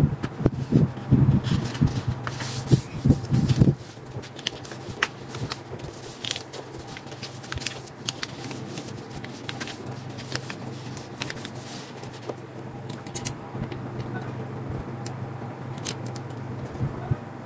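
Sheets of paper being handled and slid into a spiral-binding paper punch: paper rustling and scraping against the machine's metal bed, with several dull knocks in the first four seconds and a low steady hum underneath.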